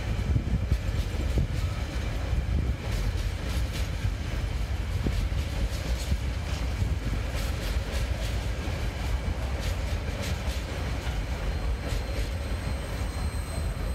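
Wagons of an empty container freight train rolling past with a steady low rumble and irregular clicking of the wheels on the rails. The clicks thin out near the end as the last wagon goes by.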